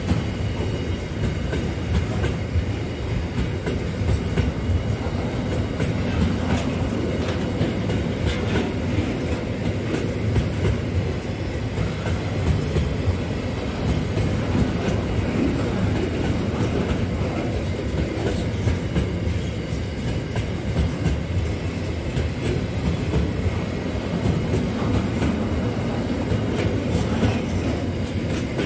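Train wagons rolling past at speed: a steady heavy rumble with an irregular clatter of wheels over the rails.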